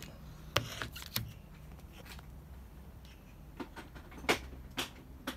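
Handling noise: about half a dozen light clicks and knocks at irregular spacing, the loudest about four seconds in, over a faint low hum.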